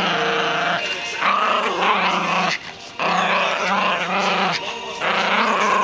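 Maltese puppy growling while tugging a plush toy in a game of tug-of-war, a playful possessive growl. It comes in long, continuous bouts, with a brief break about two and a half seconds in and another shortly before the end.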